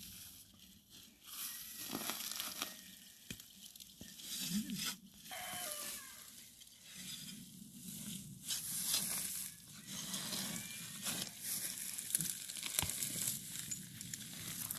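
Digging into dry ground with a hand digging tool to lift comfrey roots: irregular crunching, scraping and tearing of dry grass, soil and roots, with scattered sharp clicks.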